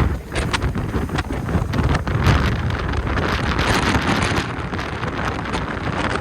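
Strong hurricane wind buffeting the microphone in irregular gusts, a heavy rumbling rush.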